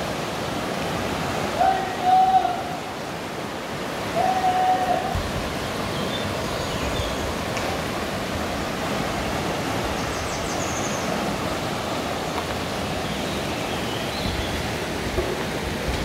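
River water rushing over rocks in a shallow rocky stream, a steady hiss. Two short calls break through about two and four and a half seconds in.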